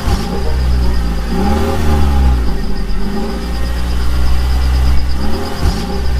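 Heavy vehicle engine running with a strong low rumble, its pitch rising and falling every couple of seconds, over a steady high whine.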